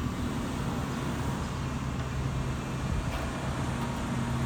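Diesel engine of a JCB telescopic handler running steadily with a low drone. A higher steady tone joins near the end.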